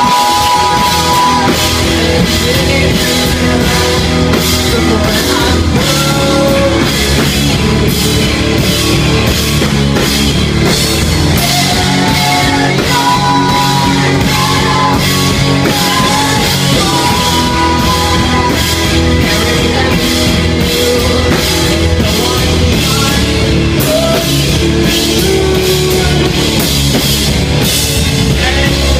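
Loud, full-band rock music: drum kit keeping a steady beat under distorted guitars and bass, with a melodic line that could be a vocal.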